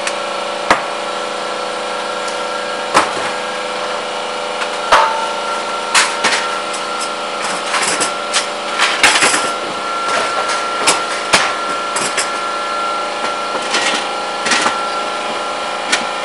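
Irregular knocks and clinks of copper sheet-metal pieces and hand tools being handled and set down on a workbench, busiest around the middle, over a steady background hum.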